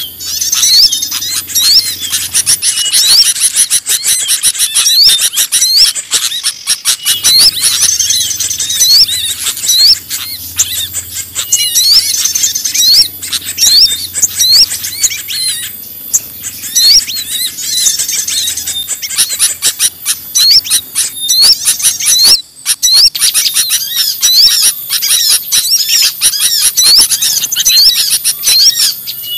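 Bird-lure recording for small birds: a loud, dense chorus of many small birds' high chirps, twitters and squeaky calls, with a short hooked call note recurring every second or two. There is a brief break about three-quarters of the way through.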